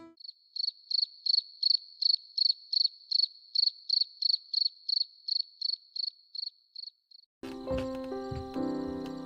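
An insect chirping: a high, even chirp repeated about three times a second, which stops about seven seconds in. Piano music comes in near the end.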